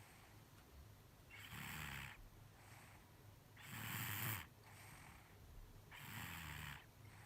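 A nine-month-old baby snoring quietly in its sleep: three raspy snoring breaths about two and a half seconds apart, the middle one loudest.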